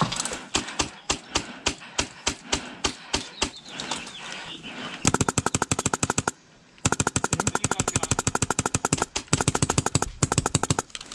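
Airsoft rifles firing. First comes a run of single shots a few per second, then from about five seconds in long, fast full-auto strings, with two short breaks.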